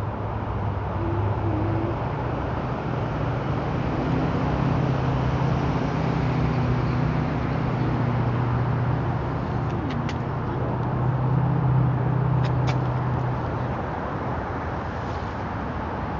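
Road traffic: a steady hiss of traffic, with a vehicle's low engine hum swelling from about four seconds in and fading away near the end. A few faint clicks come through in the second half.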